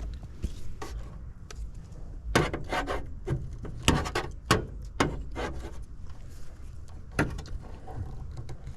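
Handling noise from work on the unit: a run of sharp knocks and clicks with some rubbing and scraping, thickest in the middle few seconds, with one more knock near the end.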